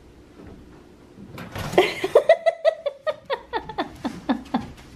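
Siberian Huskies vocalizing in excitement at a visitor's arrival: a rapid run of short, high yips and whines, about five a second, starting about a second and a half in.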